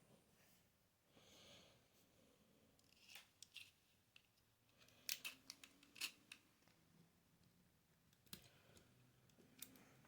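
A scattering of sharp clicks and snips from small hard parts being handled, with a few around three seconds in, a louder cluster about five to six seconds in, and single clicks near the end.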